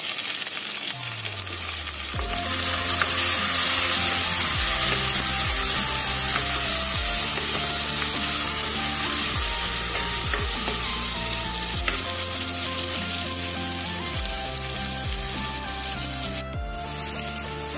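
Shallots, green chillies and tomato sizzling in hot oil in an earthenware clay pot, stirred with a wooden spoon, under soft background music of stepped notes.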